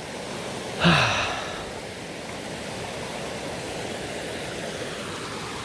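Woodland stream rushing steadily. About a second in, a short sigh with falling pitch from the hiker.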